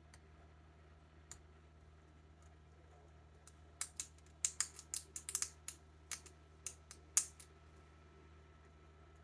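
A quick run of sharp clicks and snips from a small cutting tool working plastic model-kit parts, bunched together from about four seconds in for some three seconds, over a steady low hum.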